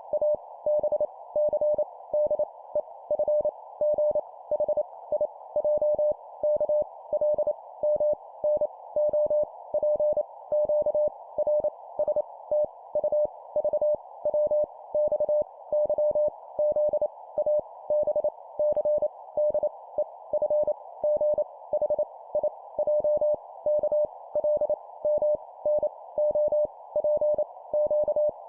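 Morse code (CW) sent at 25 words per minute as separate letters: a single mid-pitched beep tone keyed in quick dots and dashes, each letter a short group with a brief pause before the next. A steady background hiss runs beneath, like a radio receiver heard through a narrow filter.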